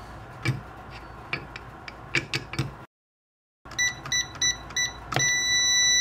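Light clicks and taps at first. After a short break come a quick run of short electronic beeps from the SECO-LARM Enforcer SK-1131-SPQ keypad, as keys are pressed, and then one long beep of about a second.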